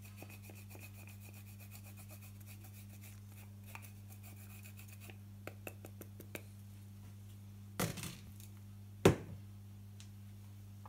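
Frozen white chocolate being grated on a metal box grater: quiet, fast, fine scraping for about the first five seconds. Then come a few light clicks, a short clatter near eight seconds and a sharp knock about nine seconds in, the loudest sound.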